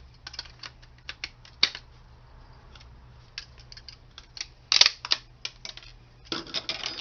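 Small metal and plastic parts of a dismantled Zip drive clicking and clattering as they are handled and sorted by hand, with a louder metallic clink about five seconds in and a short run of clatter near the end.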